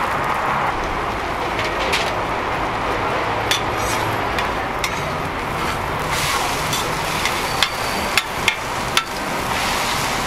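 Steel spatulas clicking and scraping on a flat-top griddle as an egg-and-vegetable toast patty is flipped and pressed, with a handful of sharp clinks, most of them close together near the end, over a steady sizzle of frying.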